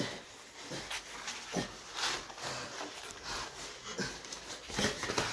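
Heavy breathing and grunting from two men grappling on the ground, in irregular breathy bursts, with the scuffle of bodies and clothing on the tiles.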